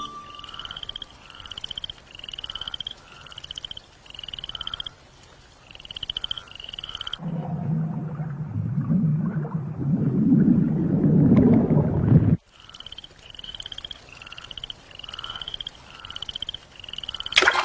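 Frog croaking: a short, high, rising call repeated evenly, about one every 0.7 seconds. From about seven seconds in, the calls give way to a low rumbling swell that grows louder, then cuts off suddenly about twelve seconds in, and the croaking resumes.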